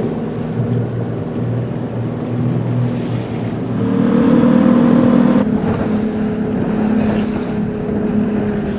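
Evinrude 175 outboard motor running under way, a steady engine hum that grows louder about four seconds in, then holds.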